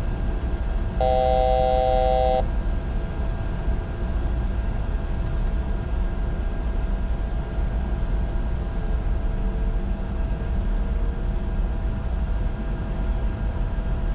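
Steady in-flight cockpit noise of a Bombardier Challenger 605: a constant rumble of airflow and engines. About a second in, an electronic cockpit alert tone sounds for about a second and a half, then stops.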